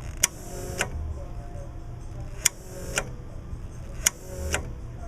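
Onan Marquis 7000 generator failing to start: sharp clicks in three pairs, the two clicks of each pair about half a second apart with a brief faint whirr between them, over a steady low hum. The start attempts are not catching.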